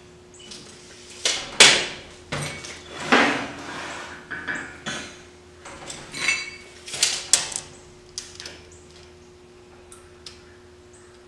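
Metal clanks and knocks as a heavy 3/8-inch steel flat bar is handled and set into a metal-cutting bandsaw's vise. The clatter is loudest in the first few seconds and thins out after about eight seconds, over a steady faint hum.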